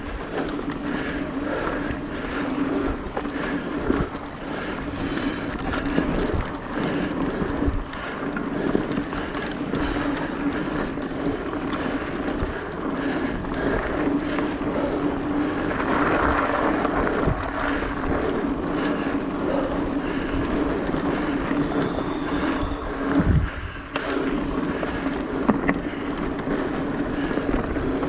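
Mountain bike rolling along a dirt singletrack: continuous tyre-on-dirt noise over a steady hum, with scattered knocks and rattles as the bike runs over bumps.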